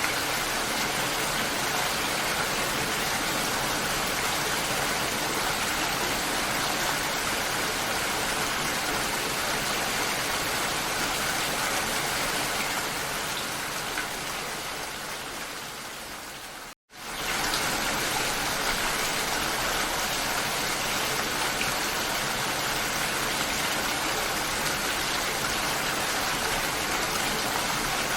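Steady rain. It fades down over a few seconds about halfway through, drops out for a split second, then comes straight back at full level: a loop or edit seam in the rain recording.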